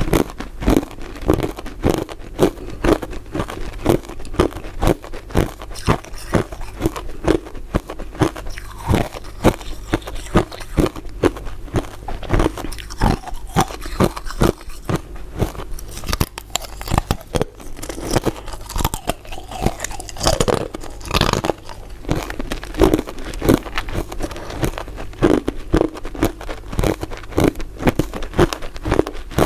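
Close-up crunching and chewing of a crisp crystal ice dessert: sharp bites and cracks, about two a second.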